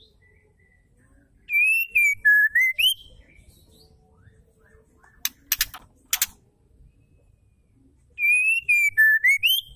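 White-rumped shama singing the same phrase twice: a clear whistle that dips and then rises sharply, with rapid high twittering over it. Three sharp clicks come between the two phrases.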